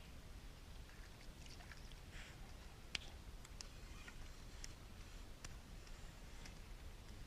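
Faint scattered clicks and ticks over a low rumble, with one sharper click about three seconds in.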